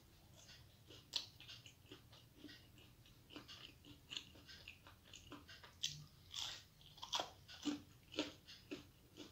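Person biting and chewing a crispy aloo pakora (fried potato fritter), a run of irregular crunches that come thicker and louder in the second half.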